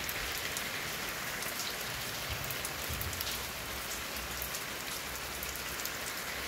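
Steady light rain falling on a wet paved street, with many fine drop ticks through an even hiss.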